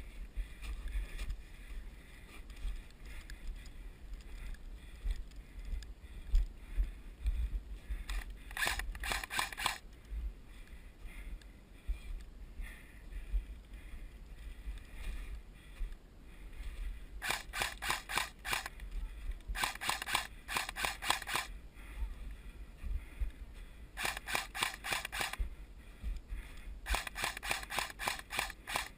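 Airsoft gun firing in several bursts of rapid, sharp clicking shots, about four or five a second, with low rumble from handling or wind on the camera between bursts.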